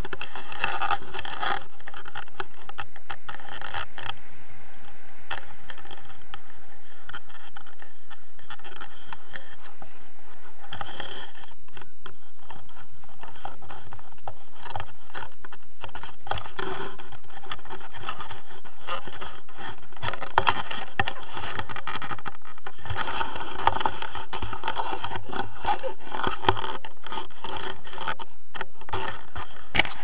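Wind rushing over an action camera's microphone, with a jacket rubbing and scraping against the camera housing.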